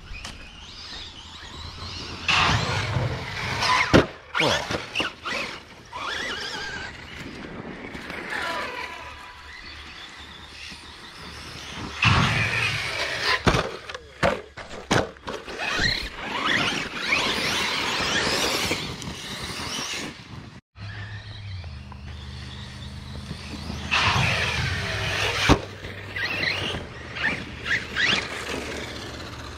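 Electric RC basher trucks driving hard on dirt, their brushless motors whining up and down in pitch as they accelerate and brake, with several sharp knocks from the trucks landing and tumbling.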